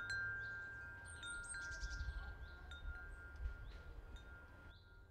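Metal chimes struck again and again, each strike ringing on at the same high pitch, over high quick chirps. The ringing fades out near the end.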